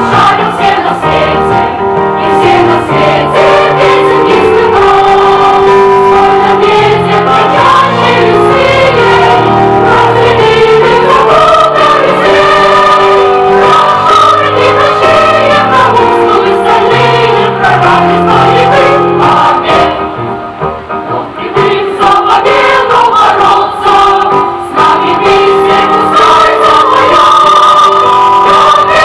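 A choir singing a song with instrumental accompaniment. The sung melody and bass line run on continuously, softening briefly about twenty seconds in.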